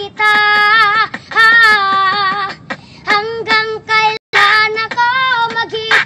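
A young boy singing solo in Tagalog, without accompaniment, in held notes that waver with vibrato and come in short phrases. The sound cuts out for an instant about four seconds in.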